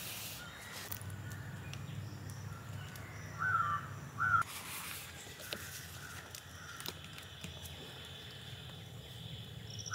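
A bird calling with short harsh calls: two loud ones about three and a half and four and a half seconds in, and a fainter one near the end. Light clicks and rustles come from a paper letter in a plastic sleeve being handled.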